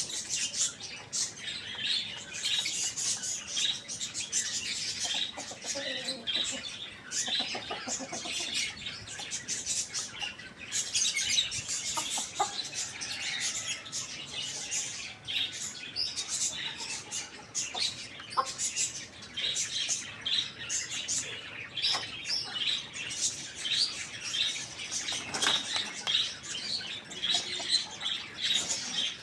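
Many small birds chirping and chattering without pause, a dense run of short high-pitched calls.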